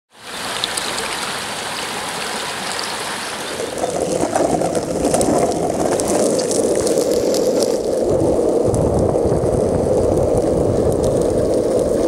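A shallow stream running over rocks, then, from about three and a half seconds in, longboard wheels rolling on asphalt with a steady rumble.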